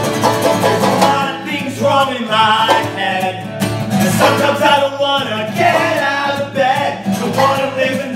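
Live acoustic guitar and banjo playing a folk song together, with a man's voice singing from about a second and a half in.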